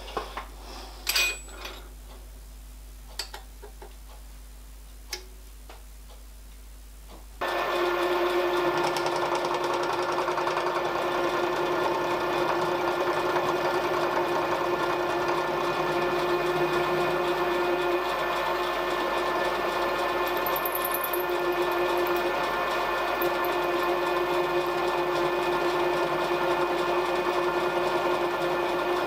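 A few sharp clicks and knocks, then about seven seconds in a milling machine starts and runs steadily with a constant hum, its end mill cutting a metal plate held in a machine vise.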